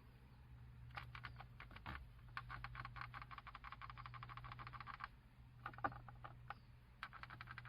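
Faint, fast clicking rattle from the plastic trim panel around a fourth-generation Honda Fit's audio head unit, coming in runs over a steady low cabin drone: the abnormal trim noise that needs fixing.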